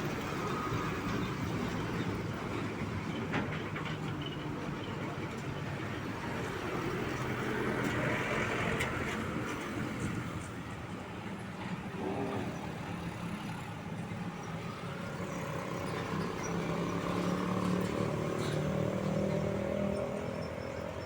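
Truck engines running in road traffic, a steady diesel drone with tyre and traffic noise. The engine note grows louder and stronger about three-quarters of the way through, as a truck comes close.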